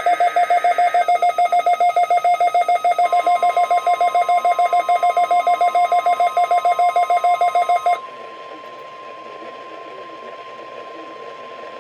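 NOAA Weather Radio Required Weekly Test tones. A burst of SAME digital header data ends about a second in. A loud rapid beeping, about seven pulses a second, runs until about eight seconds in. The steady 1050 Hz warning alarm tone starts about three seconds in and sounds on alone once the beeping stops.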